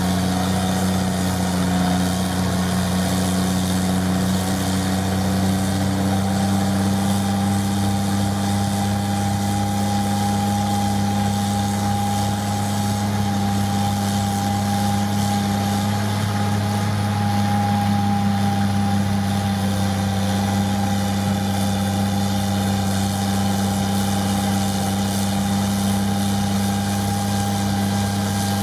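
Caterpillar wheel loader's diesel engine running steadily under load while it drives a Contant snowblower attachment that is throwing snow. It makes a constant deep hum with a steady higher whine above it.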